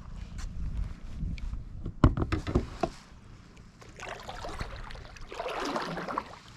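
Kayak paddle strokes swishing and splashing in the water, with a few sharp knocks about two seconds in.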